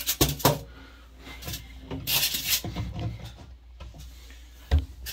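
Styrofoam blocks scraping and bumping against the glass and each other as they are set down in an empty aquarium: a few knocks at the start, a rustling scrape about two seconds in, and a single thump near the end.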